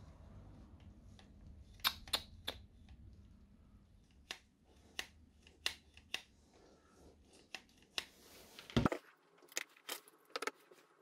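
Handling noise from a plastic twist-throttle grip and its wiring: a string of sharp, irregular clicks and light knocks, with one heavier knock about three-quarters of the way through.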